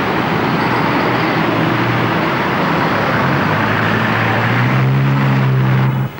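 City street traffic, with cars driving past close by. Over the last two seconds a vehicle engine's low drone builds, then the sound cuts off suddenly near the end.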